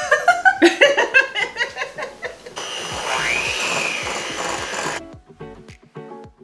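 A short burst of music, then an electric hand mixer whirring up to speed and running steadily for a couple of seconds as it whips cream cheese and butter. Near the end it cuts off and gives way to quieter background music with a beat.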